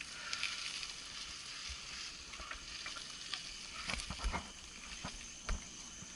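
Mountain bike rolling slowly over a dry dirt trail covered in fallen leaves: tyres crackling and rustling through the leaves. Sharp knocks from the bike come about four seconds in and again near the end.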